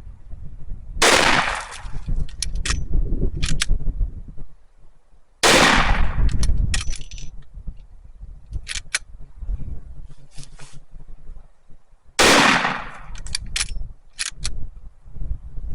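Three heavy .44-calibre gunshots several seconds apart, each ringing out briefly, fired into a standing tree as a test of penetration, with lighter clicks between the shots.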